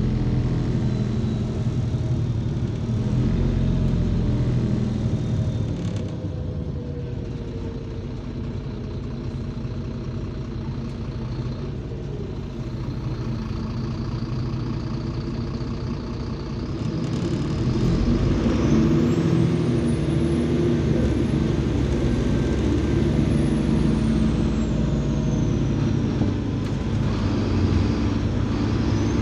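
Interior sound of a MAZ 203 city bus on the move, its Mercedes-Benz OM 926 LA inline-six turbodiesel running with a steady low drone. The engine grows louder about two-thirds of the way through, and a thin high whine rises, holds and falls away.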